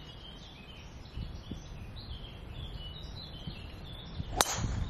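Birds chirping, then about four and a half seconds in a single sharp crack of a driver striking a golf ball off the tee.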